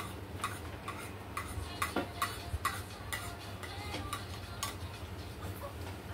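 Eating sounds: a run of quick light clicks and taps, about two or three a second, thinning out after about five seconds.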